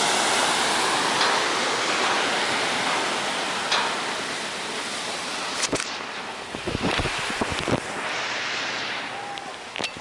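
Surf breaking and washing up a sandy beach, loudest at the start and easing off, with a few low thumps on the microphone around the middle.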